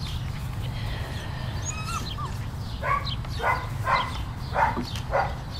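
Seven-week-old German Shorthaired Pointer puppy barking: five short yappy barks about half a second apart, starting about halfway through.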